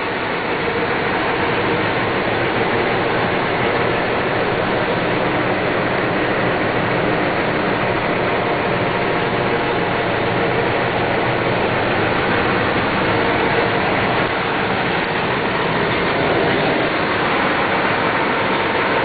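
Cummins ISX 475 hp diesel engine of a 2006 Peterbilt 387 idling steadily.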